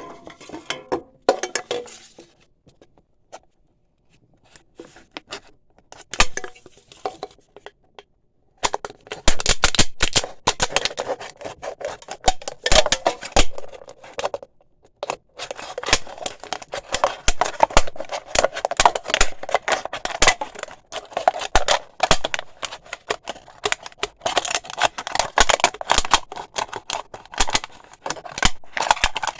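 Razor blade cutting through thin aluminium pop-can metal: scattered clicks at first, then long dense runs of crackling, scraping clicks, broken by a short pause about halfway.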